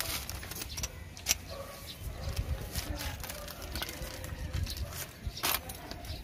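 Scattered small clicks and rustles of brake linings and their plastic packaging being handled, over a steady low rumble.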